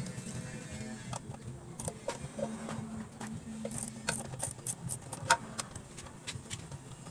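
Small motorcycle engine idling low and steady, with scattered light clicks and taps of parts being handled, one sharper click a little past five seconds in.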